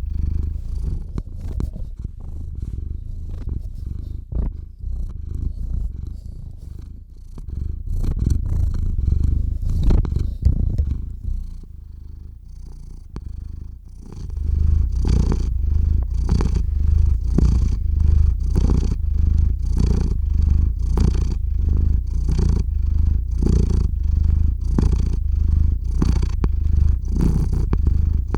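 Domestic cat purring close to the microphone: a low purr that pulses with each breath in and out. It is softer and uneven for the first half, then louder and steady in an even rhythm from about halfway.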